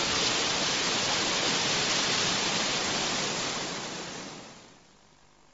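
Animation sound effect: a loud, steady rushing noise with no beat or tone, fading out about four and a half seconds in.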